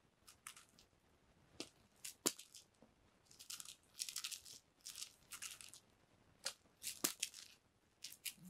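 Short bursts of scratchy rustling and a few sharp clicks from a string cat toy (a toy mouse on a cord) being played with by a cat on a foam floor mat.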